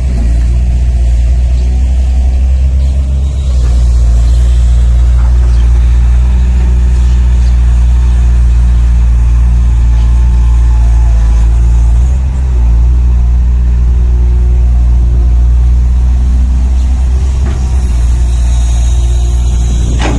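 Engine sound of radio-controlled scale construction models, a deep diesel-like running note, likely from the models' sound units, holding steady with slight shifts in level about 3.5 and 12 seconds in.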